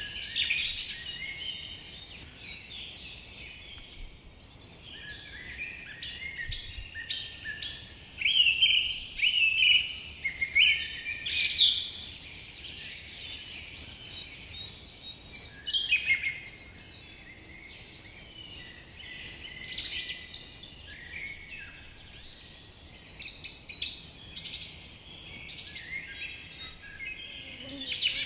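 Small birds chirping and twittering in busy bursts every few seconds, with quick high notes, some sliding down in pitch.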